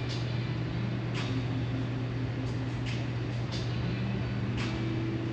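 A steady low hum of room noise, with a few faint, short hisses over it.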